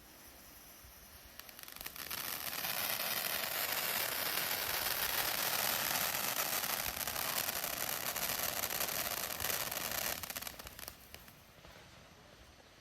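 Ground fountain firework spraying sparks with a loud, steady hiss and fine crackle, starting about two seconds in and dying away after about eight seconds.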